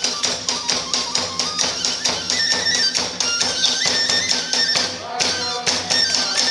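Iwami kagura hayashi playing: drums struck in a fast, even beat of about four to five strokes a second, with clashing hand cymbals and a bamboo flute carrying the melody in held, stepping notes. The beat eases briefly about five seconds in, then picks up again.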